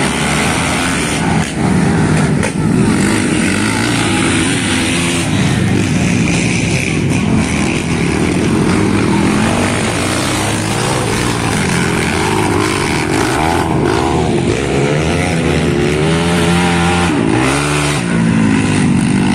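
Racing ATV quad engines revving hard, their pitch climbing and dropping again and again as the throttle opens and closes.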